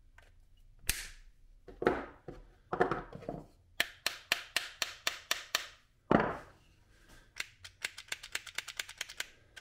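Diagonal cutters snap through a thin steel pin about a second in, then a small hammer taps on the pin in a 3D-printed plastic holster: a few heavier knocks, a steady run of about three taps a second, one hard blow about six seconds in, and a fast run of lighter taps near the end.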